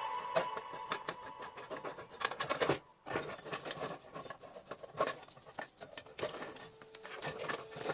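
Irregular light clicks and taps, with a brief gap about three seconds in.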